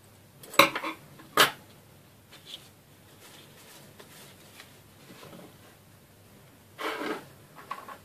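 Steel scissors giving two sharp metallic clicks a little under a second apart as they snip through satin ribbon and are set down on a wooden table, followed by faint handling of the ribbon and a short soft rustle near the end.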